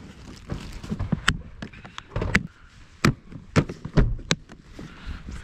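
A black hard plastic gun case being shut and handled: a series of about six sharp plastic clicks and knocks, typical of its latches snapping closed and the shell knocking. Dry grass rustles faintly underneath.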